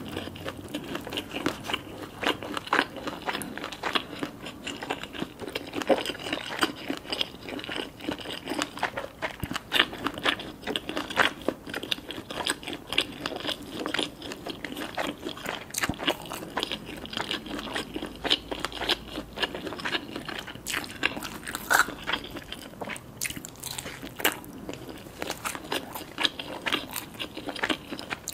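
A person eating: continuous biting and chewing, with many quick, irregular crunchy clicks and wet mouth sounds.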